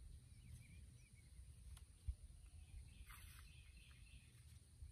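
Near silence outdoors: a faint low rumble with a few faint bird chirps.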